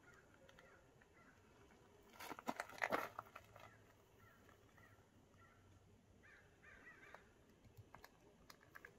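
Near-quiet room tone, broken a couple of seconds in by a second-long burst of harsh crackling, then faint short bird chirps.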